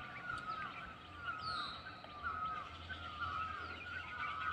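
Birds calling outdoors: one bird repeats a short rising-and-falling note about twice a second, and a higher falling whistle from another bird comes in about one and a half seconds in.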